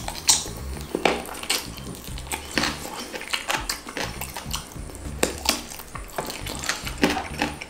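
Close-miked mukbang eating sounds: wet lip smacks, sucking and chewing on a chicken drumstick, an irregular run of sharp smacks and clicks.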